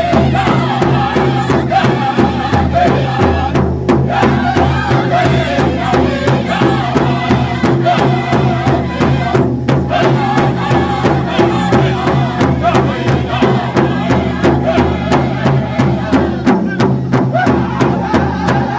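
A powwow drum group singing in chorus over a steady, evenly struck drumbeat.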